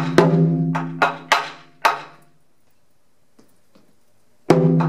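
Nagado-daiko on a slanted stand struck with wooden bachi: about five hits in the first two seconds, each ringing on with the drum's low tone. The playing stops for about two seconds, then the strikes resume near the end.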